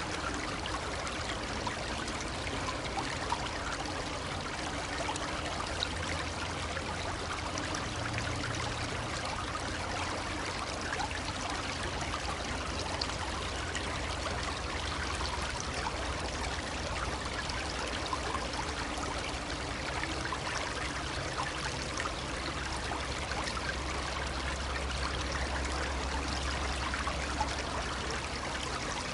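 Shallow brook babbling steadily: a constant, flickering trickle and rush of running water, with a low rumble underneath.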